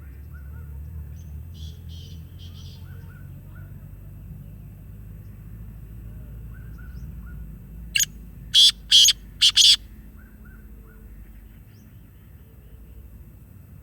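Pet parrot calling: soft short chirps, then a quick run of about five loud, harsh squawks a little past the middle.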